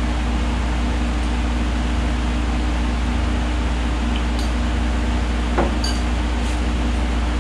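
Window air-conditioning unit running with a steady, even hum and a low drone underneath.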